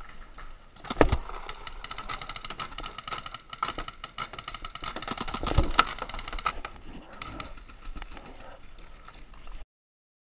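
Paintball guns firing in fast strings of sharp pops, many a second, with two heavier thuds, one about a second in and one about halfway through. The shooting stops abruptly near the end.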